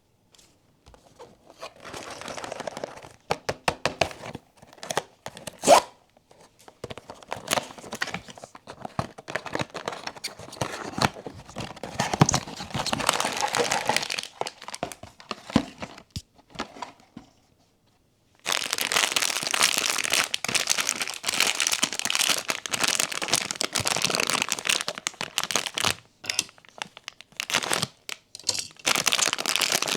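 Blind-box packaging being torn open and crinkled by hand, with scattered sharp clicks. It pauses briefly about two-thirds of the way through, then resumes as steadier, louder crinkling.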